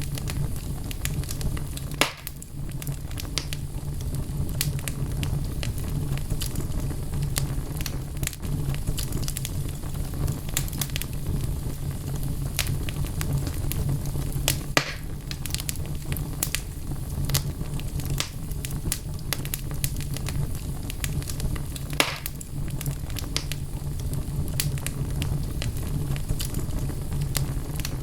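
Wood logs burning in a fireplace, crackling steadily with a low, even rumble of flame and frequent small snaps. Louder pops stand out about 2, 15 and 22 seconds in.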